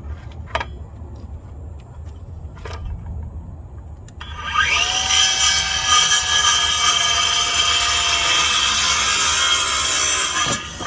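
Skil brushless cordless circular saw starting up about four seconds in and cutting through a 2x12 board, running steadily under load for about six seconds, then winding down as it leaves the cut near the end. Two short clicks come before it starts.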